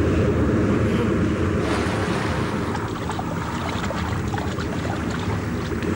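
Steady rush of sea surf against rocks, with wind.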